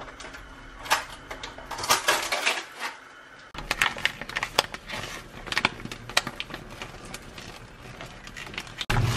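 Kitchen handling sounds: scattered clicks and taps, then a paper bag crinkling and tapping as flour is shaken from it over raw chicken gizzards in a stainless-steel colander. A louder steady running sound starts just before the end.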